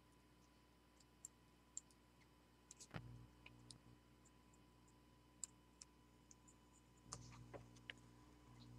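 Faint scattered ticks and small clicks from soldering a bus wire to a chip capacitor, over a low steady hum. A soft knock comes about three seconds in and another about seven seconds in.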